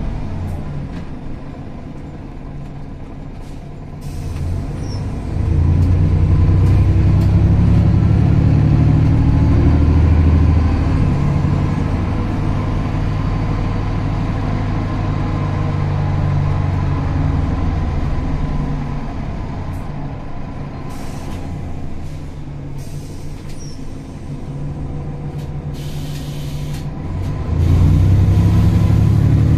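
MAN NL202 CNG city bus running. The engine drone gets louder about five seconds in and holds, eases off for a while, then picks up again near the end. Short hisses of compressed air from the air brakes come through.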